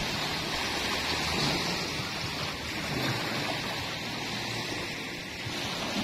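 Small waves breaking and washing up the sand at the water's edge: a steady hiss of surf.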